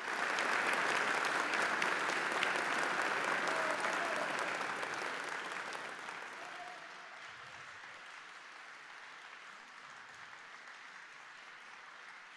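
Audience applauding, loudest in the first few seconds and then slowly dying away.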